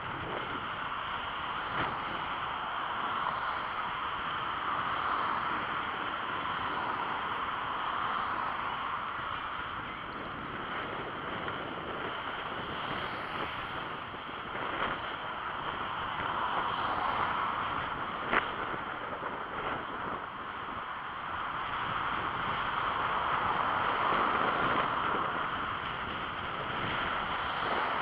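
Steady wind noise buffeting an action camera's microphone as a bicycle rides along the road, mixed with tyre and road rumble, swelling and easing every few seconds. A single sharp click about two-thirds of the way through.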